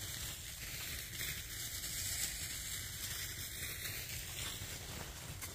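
Dry fallen leaves rustling and crackling as they are trodden, with a low steady rumble underneath.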